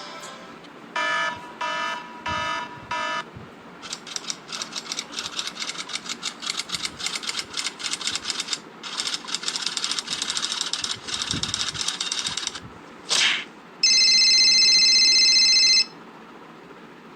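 A run of separate sound effects. First come four short electronic beeps about a second in, then about eight seconds of rapid clicking or rattling in uneven clusters. A brief whoosh follows, then a steady electronic buzzer tone lasting about two seconds.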